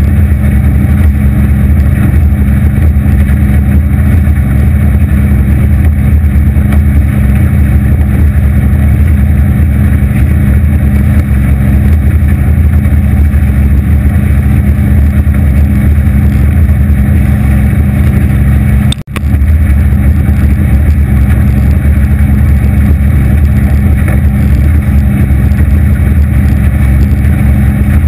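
Aluminium Anytec 750 SPD boat under way at speed, its 250 hp Evinrude outboard running at a steady pitch under the rush of water along the hull. About two-thirds of the way through, the sound cuts out for an instant and comes straight back.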